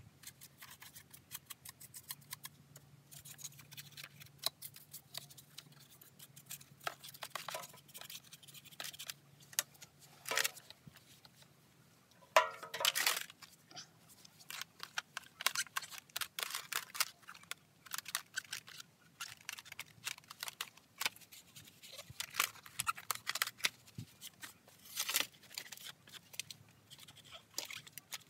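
A cloth rag rubbing and scrubbing the dirty plastic housing of a Stihl MS170C chainsaw, with scattered clicks and knocks as the saw is handled; the loudest scrape comes about halfway through.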